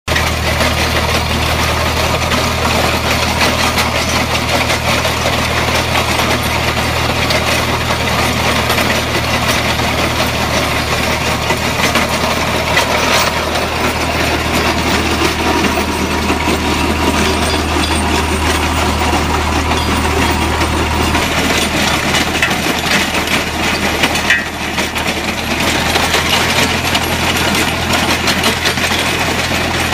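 Sulky HRV 130.9 vineyard rotary harrow's tines churning through hard-packed stony ground, stones clattering and rattling against the rotors and frame, over the steady hum of the tractor engine driving it. The low engine hum drops away about two-thirds of the way through and comes back near the end.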